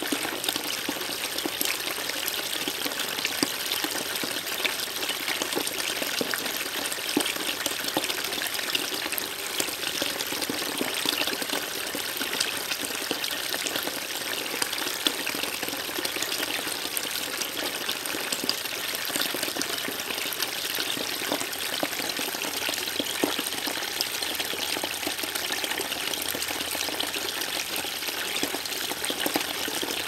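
Small shallow stream babbling steadily, a dense patter of tiny splashes and trickles over an even rush of water.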